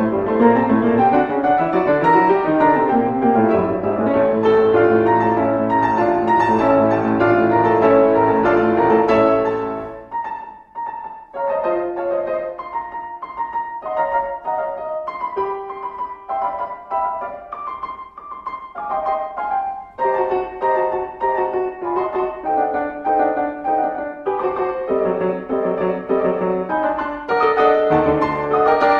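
Solo classical piano music, thinning to a quieter, sparser passage about a third of the way in and filling out again after about two-thirds.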